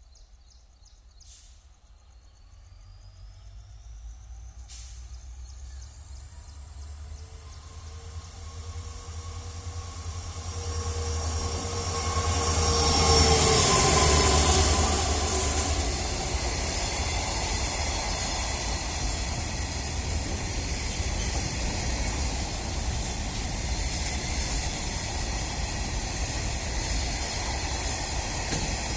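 A freight train hauled by twin WDG4 (EMD GT46MAC) diesel locomotives with 16-cylinder two-stroke EMD 710 engines approaches and passes. The engine rumble grows louder, a high ringing tone rises in pitch, and the sound is loudest about halfway through as the locomotives go by. After that comes the steady rumble and clatter of the loaded BOXN wagons rolling past.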